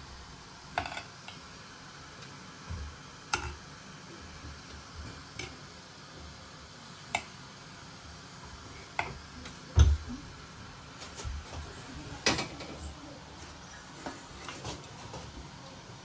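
Scattered clicks and light knocks of kitchen dishes and utensils being handled, with one heavier thump about ten seconds in.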